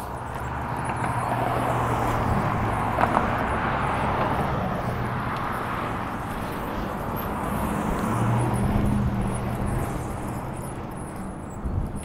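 Bicycle riding along pavement: a steady rush of tyre and wind noise that swells twice, over a low steady hum.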